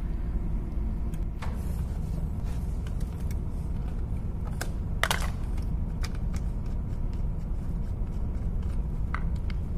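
Light metallic clicks and clinks of hand tools on a battery terminal clamp as it is worked loose, the sharpest cluster about five seconds in. The terminal is dirty and corroded, and it hampers starting. A steady low rumble runs underneath.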